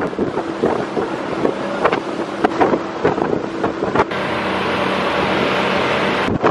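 Small motorboat's engine running at speed, with wind buffeting the microphone and sharp knocks every second or so as the boat rides through swells.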